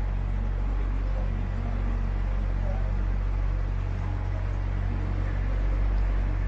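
Tourist boat's motor running with a steady low hum under a wash of noise.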